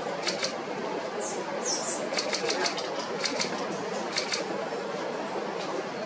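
Several short bursts of rapid clicks from a camera shutter firing in continuous mode, over a steady low murmur. A bird gives two brief high chirps a little over a second in.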